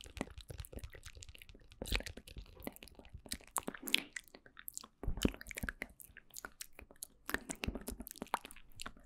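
ASMR mouth sounds made right at the microphone: irregular wet clicks and smacks of lips and tongue, several a second, with a few louder pops.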